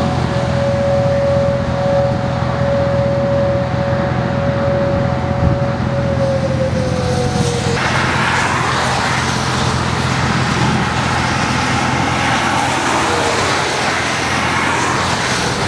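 Outdoor tornado warning siren sounding a steady tone, sliding down in pitch and dropping out about halfway through. After that comes the rushing hiss of traffic on a wet highway.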